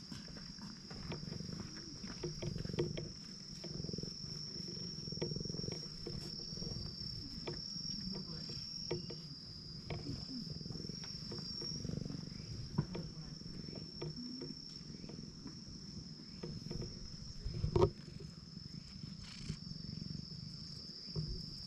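Brown tabby cat purring with a continuous low, pulsing rumble as it is stroked, with scattered small rustles and clicks and one sharper, louder knock late on. A steady high-pitched buzz runs underneath.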